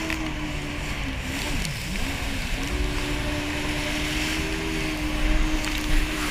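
Jet ski engine running on the water, its pitch dropping and recovering twice as the throttle is eased off, then held steady, with wind and water spray noise.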